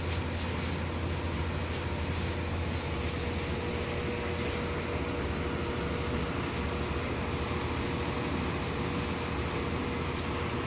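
A steady machine hum with an even hiss.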